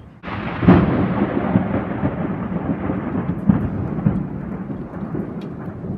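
Close thunder: a sudden crack, then a long rumble that slowly dies away, with a further crack about three and a half seconds in. Rain can be heard underneath.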